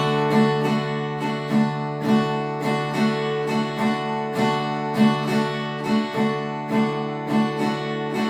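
Acoustic guitar playing a D major chord in a steady right-hand strumming pattern from the fourth string down, about two strokes a second.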